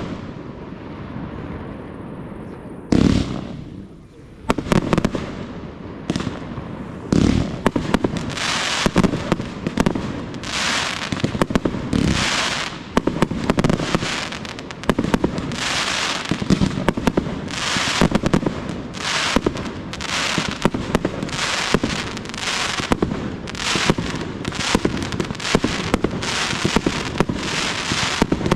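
Fireworks display: shells launching and bursting. A single loud bang comes about three seconds in, then from about five seconds on a dense, rapid barrage of bangs.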